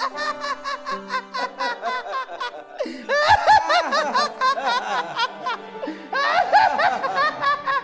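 Several people laughing together in quick repeated bursts, louder about three seconds in and again near six seconds, over background music holding a steady low note.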